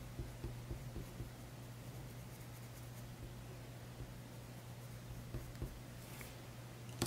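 Coloured pencil faintly scratching on paper in short, light shading strokes, over a low steady hum. A single sharp tap near the end.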